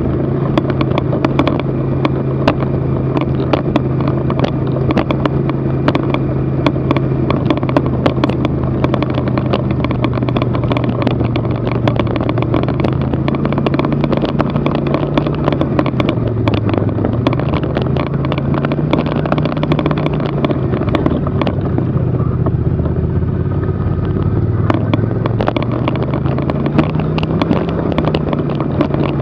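Snowmobile engine running steadily at low trail speed, its pitch dipping and recovering twice, a little past halfway and again near the end, with a constant rattle of clicks over it.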